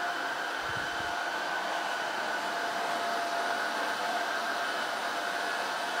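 Tineco Floor One S7 Steam cordless wet-dry floor cleaner running, its suction motor giving a steady whine over an even rushing hiss as it vacuums up liquid from the floor. Suction is at the raised power that its auto mode sets on detecting heavy dirt.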